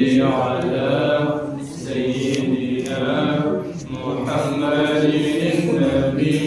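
Men chanting salawat, Islamic devotional blessings on the Prophet, in long melodic phrases with short breaks about every two seconds.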